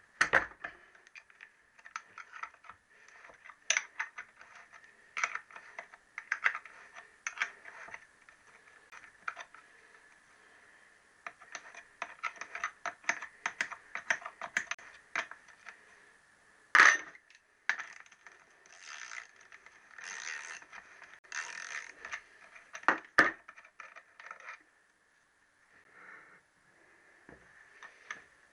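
Hand tool clicking and clinking against the alloy crankcase of a Triumph T120R Bonneville engine as the case screws are cracked loose and wound out. The clicks come in irregular runs, with a few brief scraping stretches and two sharper knocks, about 17 and 23 seconds in.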